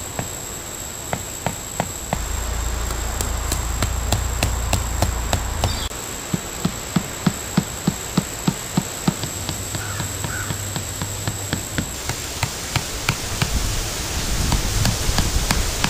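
Thin wooden stakes being hammered into the ground with a hatchet: a series of sharp knocks, running at about three a second in the middle. A steady high insect buzz sounds behind them.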